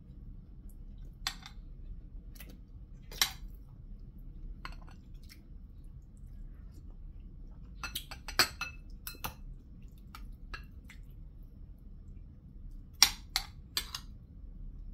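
Metal spoon clinking and scraping against a ceramic plate and soup bowl during a meal: scattered sharp clinks, bunched about eight seconds in and again near the end.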